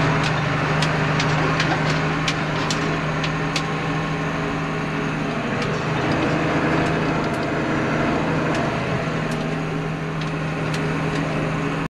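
Valtra tractor engine running steadily under way, heard from inside the cab, with scattered sharp ticks.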